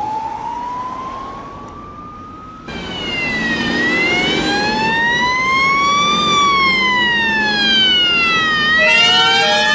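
A siren tone rising slowly, cut off about two and a half seconds in. Then a louder fire engine siren wails through one slow rise and fall lasting about five seconds, over the truck's engine. Near the end a second siren overlaps it.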